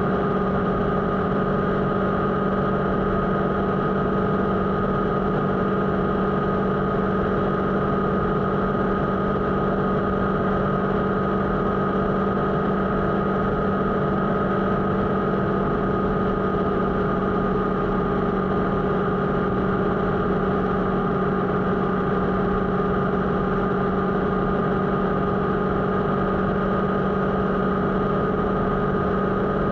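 Motorcycle engine running steadily at an unchanging pitch.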